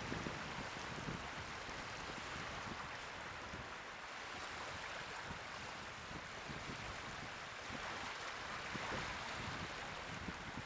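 Sea waves washing in steadily, with wind buffeting the microphone in irregular low gusts.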